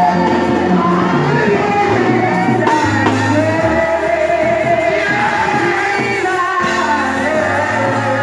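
Gospel worship music: voices singing together over a band with a steady, held bass line.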